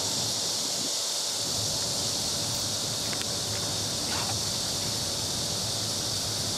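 Steady insect chorus: a continuous, even high-pitched hiss with no change in level.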